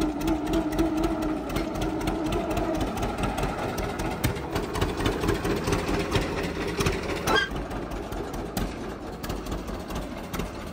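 An engine running steadily, with a pitched hum that wavers and fades after about three seconds and a brief rising sweep about seven seconds in.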